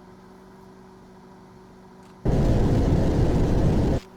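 A microwave oven humming faintly and steadily, then a loud, deep rumbling whoosh about two seconds in that stops abruptly after under two seconds: the sound of the microwave catching fire.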